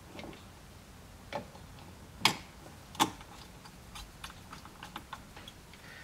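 Hand screwdriver turning a small screw into a phone-holder swivel mount: light scattered clicks and ticks, with two sharper clicks between two and three seconds in.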